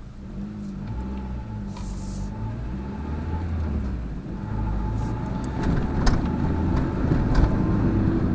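Car engine and exhaust heard from inside the cabin while driving, getting louder as the car picks up speed, with a few light knocks. The car has a noise that the driver puts down to the welded exhaust, pushed up too high, vibrating on the chassis.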